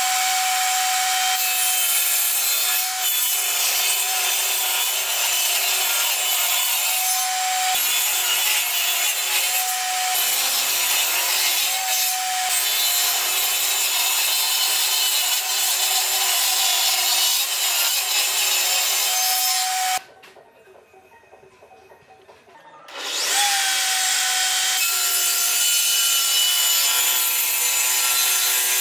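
Benchtop table saw running and cutting a series of kerfs into a pine block, a steady whine over the cutting noise, its pitch dipping briefly every few seconds. The sound cuts out for about three seconds about two-thirds through, then resumes.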